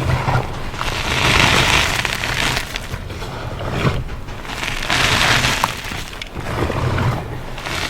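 Reformed gym chalk and baked cornstarch crunchies being crushed: a dense crackling crunch that swells up three times and eases between squeezes.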